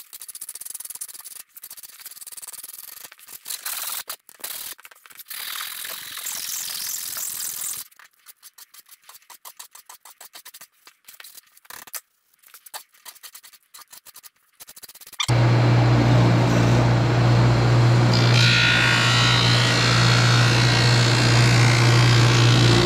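Sandpaper rubbed by hand along the edge of a wooden board in scratchy strokes, which turn quicker and lighter about eight seconds in. From about fifteen seconds in, a Grizzly G0458Z drum sander runs with a loud, steady hum and hiss.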